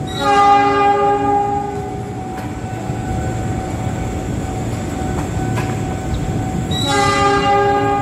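Train horn sounding two blasts, a long one at the start and another about seven seconds in, over the low rumble of a train running into the station.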